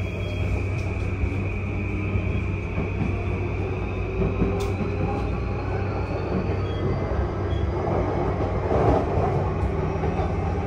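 E235 series Yamanote Line train with a Mitsubishi full-SiC VVVF inverter, running and heard from inside the car. A steady high inverter whine stops about two-thirds of the way through, over a constant rumble of wheels on rail that grows somewhat louder near the end.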